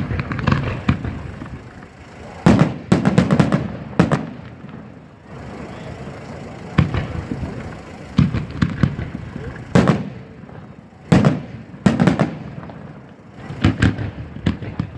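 Fireworks display: sharp bangs of shells and comets going off every one to three seconds, some single and some in quick runs of several reports.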